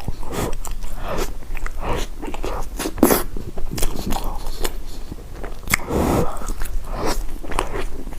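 Close-miked eating sounds: a person biting and chewing food, with irregular sharp mouth clicks and smacks.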